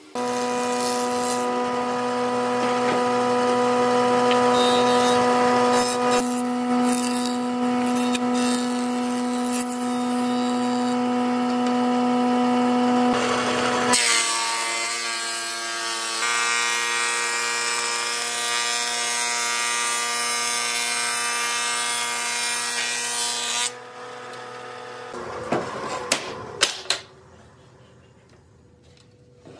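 Jointer running with a steady whine and a planing hiss as a board is fed across the cutterhead. About halfway through, the sound cuts to another planing machine running, which stops a few seconds before the end. A few sharp knocks of boards being handled follow.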